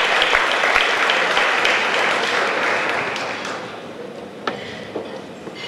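Audience applauding, fading away after about three and a half seconds, followed by two sharp knocks.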